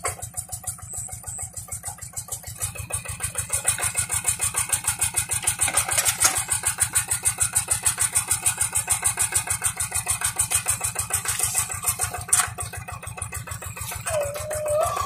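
Single-cylinder diesel engine of a two-wheel hand tractor running with an even, rapid chugging beat as it works a flooded rice paddy. It gets louder about three seconds in as the tractor comes close.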